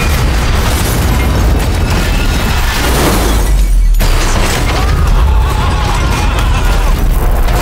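Diesel locomotive ploughing into a stacked pile of junked cars: a loud continuous rumble and crash of crumpling metal. The higher sounds drop out briefly about three and a half seconds in, then the rumble carries on.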